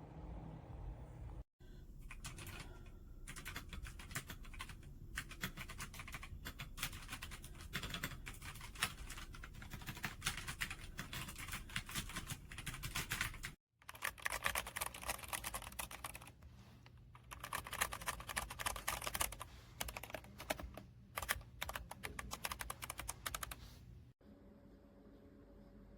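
Redragon K556 mechanical keyboard being typed on quickly, a dense run of key clicks and clacks. There is a brief break about halfway, and the typing stops shortly before the end.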